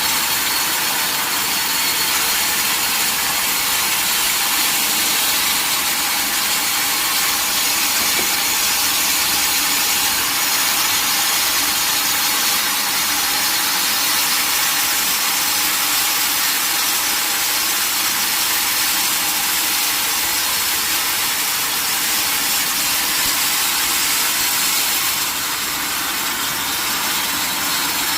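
Sawmill saw running steadily while cutting through a mahogany log: a constant loud, high hiss with a faint whine, dipping slightly near the end.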